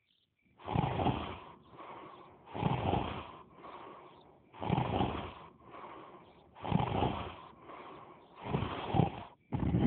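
Cartoon snoring from an animated larva character: five loud snores about every two seconds, each followed by a softer trailing breath.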